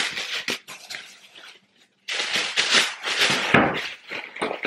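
Tissue paper rustling and crinkling as it is handled and tucked into a paper gift bucket, in two stretches with a short break about two seconds in.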